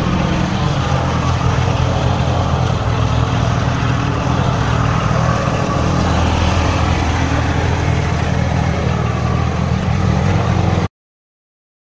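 Briggs & Stratton 12 hp ride-on mower engine running steadily; the sound cuts off abruptly near the end.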